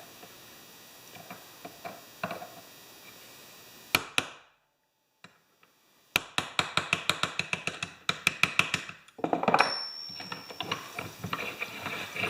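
Light hammer taps on a metal punch, working the snapped brass throttle arm back onto a generator carburetor: a few small clicks and a single knock, then a quick run of sharp metallic taps, about seven a second for some three seconds, followed by scraping and a few more clicks.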